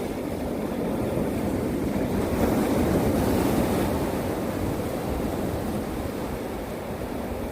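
Winter sea waves breaking and washing on the shore: a steady roar of surf that swells about two to three seconds in and then eases off.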